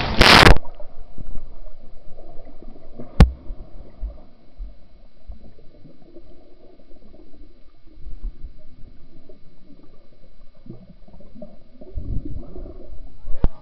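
A splash as someone plunges into a swimming pool, then muffled underwater sound from beneath the surface: low bubbling and gurgling, with a sharp click about three seconds in and a louder churning stretch near the end.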